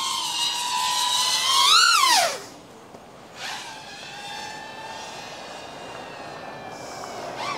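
FPV quadcopter's motors and propellers whining, the pitch climbing over the first two seconds and then falling away steeply as the throttle comes off. After a short lull they settle into a steadier, quieter whine with many overtones as it flies.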